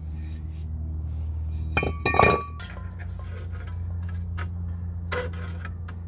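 Metal clinks and clanks of brake parts and hand tools: a rear disc brake rotor lifted off the hub and the parking brake shoes worked with pliers to loosen them after the rotor fit too tight. One loud ringing clank comes about two seconds in, with a few lighter clicks later, over a steady low hum.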